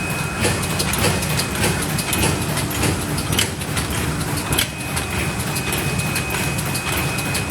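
Leader PL-145 paper lid forming machine running, with a steady mechanical hum and a thin high whine under regular clacking strokes as it forms lids.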